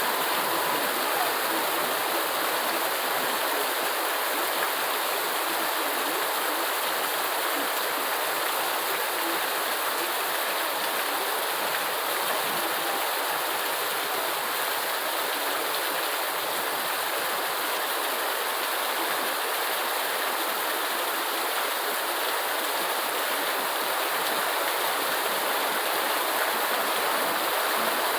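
Steady, unbroken rain, an even hiss of water with no separate drops or events standing out.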